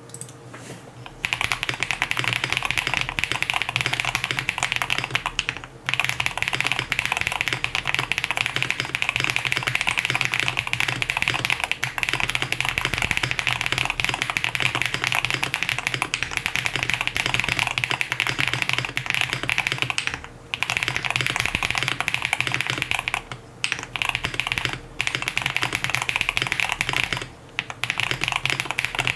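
Continuous typing on a QK65 mechanical keyboard with lubed Zaku switches on a POM plate, foams installed and GMK keycaps: rapid key clacks starting about a second in, with a few brief pauses.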